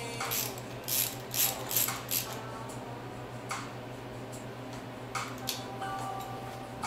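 A hand ratchet wrench clicks as it turns the bolt of a timing-belt pulley, about two or three clicks a second for the first two seconds. After that come a few separate clicks as the tool is worked and set down.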